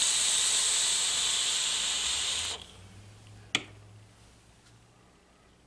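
A long, loud breathy hiss of a vaper taking a hit of vapour, cutting off about two and a half seconds in, then a single sharp click about a second later.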